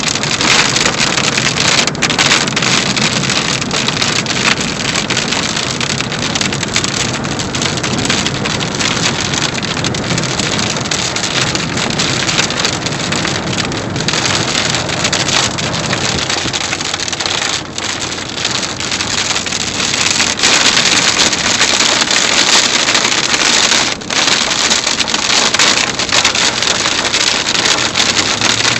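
Heavy rain and wind hitting a moving vehicle, heard from inside the cabin: a loud, steady rush of rain on the glass and body with road noise beneath.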